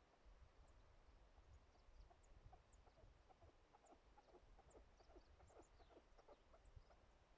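Faint bird calls: a quick series of short clucking notes through the middle, with thin high chirps scattered around them, over a low wind rumble.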